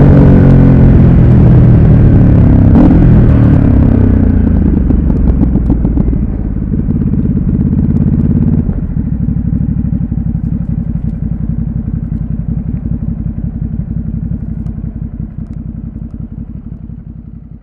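2017 Ducati Supersport S's 937 cc L-twin engine, its revs falling as the bike slows. About nine seconds in it settles into a lumpy, pulsing idle, which fades away near the end.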